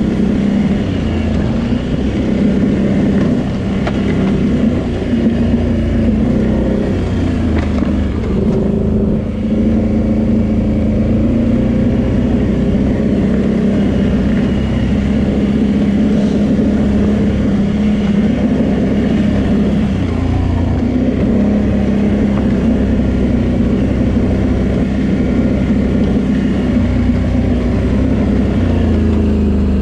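Can-Am Renegade 800 quad's V-twin engine running loud and close at a fairly steady cruising speed, with only small rises and falls in engine speed.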